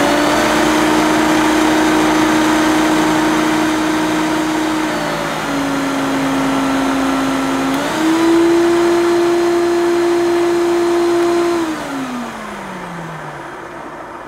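Hoover Turbopower 2 Autosense upright vacuum cleaner motor running up to speed and running steadily with a whine. About five seconds in the pitch steps down as the Autosense lowers the power on finding no dirt. About eight seconds in it steps up to a higher pitch on boost, then winds down with a falling whine from about twelve seconds.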